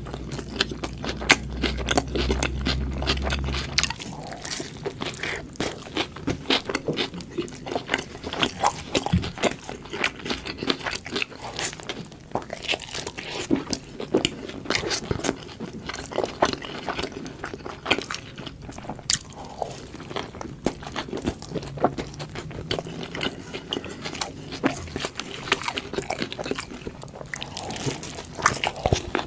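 Close-miked biting and chewing of a burger sandwich: a dense run of wet clicks and soft crunches. A low hum underneath stops about four seconds in.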